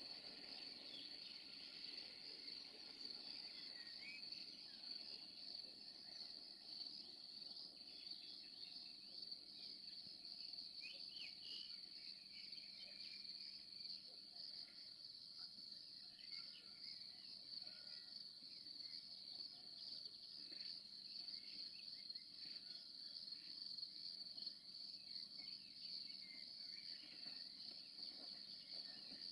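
Faint, steady chirring of crickets, with a few scattered short chirps over it.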